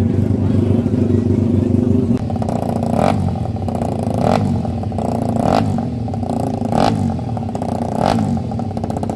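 Racing motorcycle engine revved in short blips about every 1.2 seconds, each rev rising and falling in pitch. Before that, for about two seconds, a steady loud engine drone.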